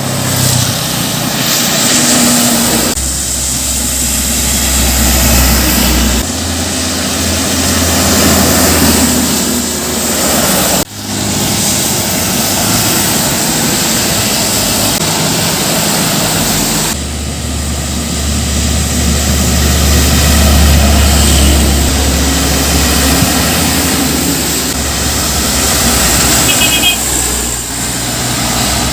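Heavy road traffic passing close by: large trucks and buses driving past with engine rumble and tyre noise, one vehicle giving way to the next.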